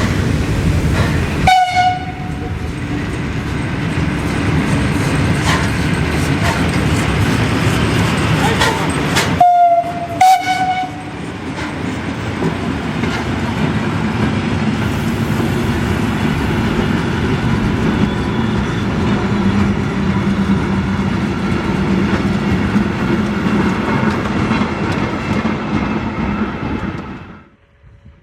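Steam locomotive BR 98 886 running past with its train, with a steady rumble of wheels and carriages. It gives a short whistle blast about a second and a half in and two more near the ten-second mark. The sound cuts off suddenly near the end.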